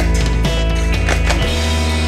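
Loud rock music with guitar; the bass moves to a new note about one and a half seconds in.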